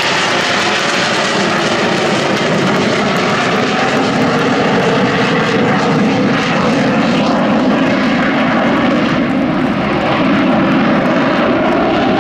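A single Aermacchi MB-339 jet trainer's Rolls-Royce Viper turbojet running loud and steady overhead, its engine note wavering slightly as the aircraft manoeuvres.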